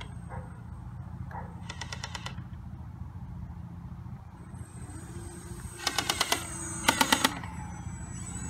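Airsoft gun on a 1/12-scale radio-controlled AC-130 gunship model firing rapid bursts of about a dozen shots a second: a short burst about two seconds in, then two louder bursts near the end. Under them runs the steady low drone of the model plane's motors.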